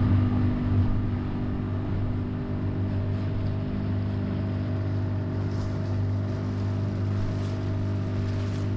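Tender's outboard motor running at a steady speed, heard from on board, with a rush of water and wind over it.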